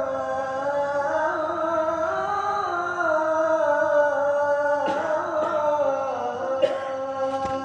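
A man's solo Islamic chant in Arabic, one voice holding long notes that slide slowly up and down in ornamented turns.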